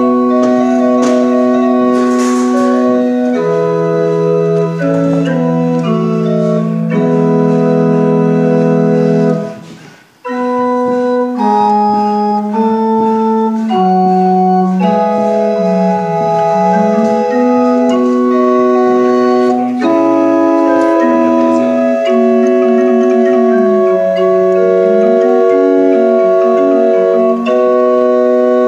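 Small tabletop pipe organ with wooden pipes, played by hand: steady held notes in chords with a moving melody and bass line. The playing stops briefly about ten seconds in, then resumes.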